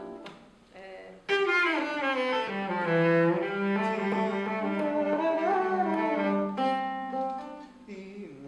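Cello played with the bow: after a quiet note or two, a loud passage of held notes with some sliding pitches starts sharply about a second in and softens near the end.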